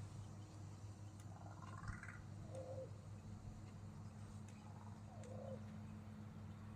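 Crow making faint, soft calls other than caws: a rising call about a second and a half in, then two short, lower calls. A steady low hum runs underneath.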